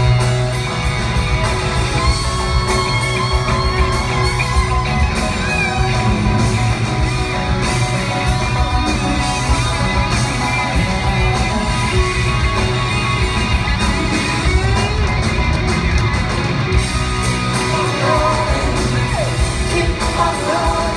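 Rock band playing live through a big PA, with electric guitar, drums and singing, echoing in a large hall. Audience whoops and shouts over the music.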